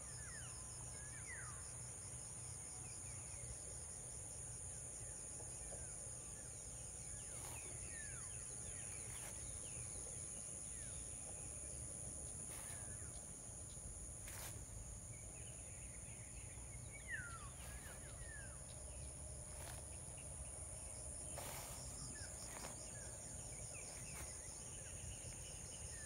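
Insects trilling steadily in a continuous high-pitched tone, with scattered short bird chirps over a faint low rumble.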